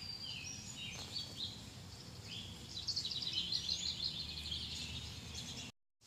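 Songbirds chirping, with a quick trill of repeated notes about three seconds in, over a steady low background hum.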